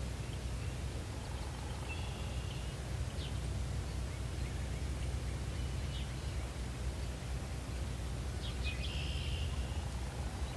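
Birds chirping faintly a few times, short high calls scattered over a steady low outdoor rumble.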